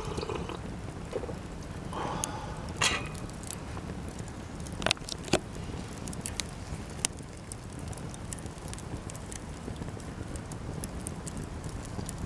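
Japanese cedar (sugi) offcuts burning in a campfire, crackling with a few sharp pops over a steady low rush; the loudest pops come about three and five seconds in.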